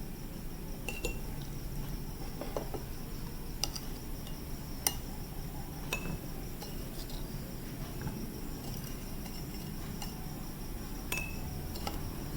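Scattered light clinks of utensils against glassware while a drink is being prepared, a few of them ringing briefly. Crickets chirp steadily underneath.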